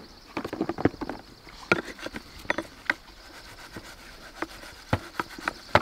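Sponge scrubbing a falconry block perch in a plastic bucket of soapy water: irregular splashing, rubbing and small knocks of the perch against the bucket.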